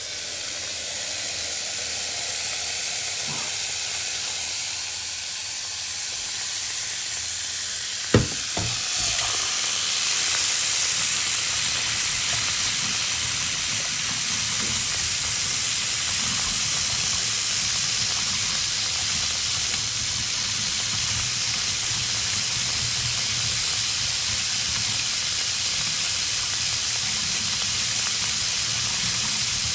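Waterfall: a steady rushing hiss of falling water. A single sharp knock about eight seconds in, after which the rush is a little louder.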